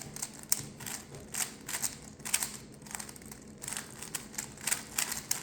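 A plastic Rubik's cube being scrambled by hand, its layers turned in quick, irregular runs of clicks and rattles.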